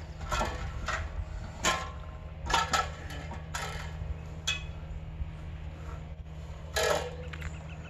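Aluminium extension ladder, used as a chainsaw-mill guide rail, clanking against a log as it is shifted into place. It gives an irregular series of sharp metal knocks and clinks, about one a second.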